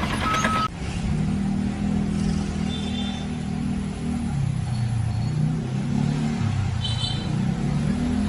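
A motor vehicle or machine engine running, its pitch rising and falling as it revs. It starts after a sudden change of sound less than a second in.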